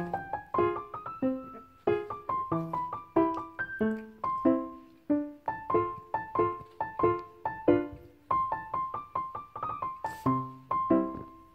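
Background music: a bright electric piano tune played as a quick run of plucky notes, several a second.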